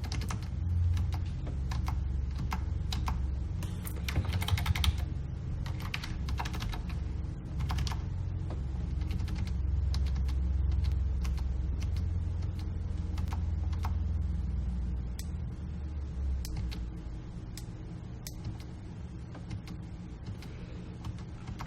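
Computer keyboard keystrokes and clicks, scattered and at times in quick clusters, over a low steady hum that fades near the end.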